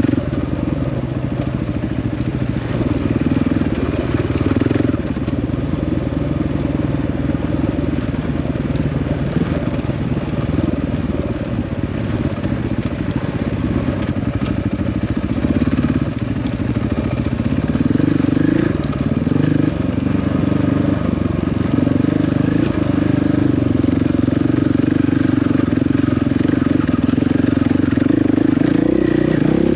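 Dirt bike engine running while riding. Its note eases off about five seconds in, climbs again around eighteen seconds in, and stays higher and louder toward the end.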